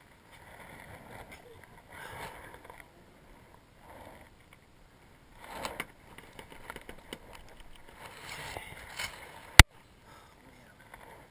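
Intermittent scraping and rustling of handling while working on an aluminium ladder, with one sharp, loud click late on.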